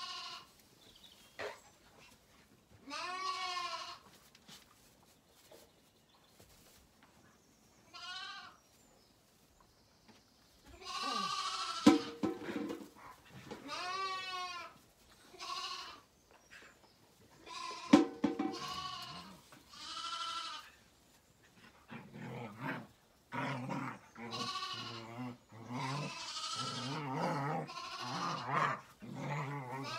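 Zwartbles lambs bleating again and again, wavering calls that come a few at a time at first and then almost without a break. Some deeper calls come near the end, and there are two sharp knocks midway.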